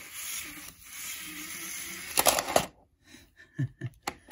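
A small electric LEGO train motor whirs steadily for about two seconds, then stops. Loud plastic clatter follows as the LEGO train parts are handled, then a few sharp clicks near the end.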